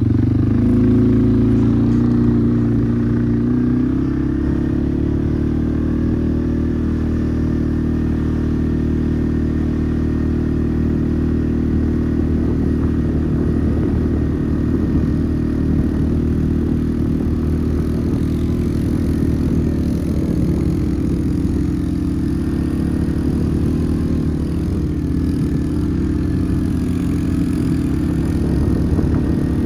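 ATV engine running steadily under way, its pitch shifting a little in the first few seconds and then holding fairly even.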